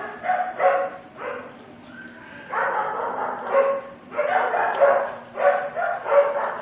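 A dog barking repeatedly, a run of about ten barks, some short and some drawn out.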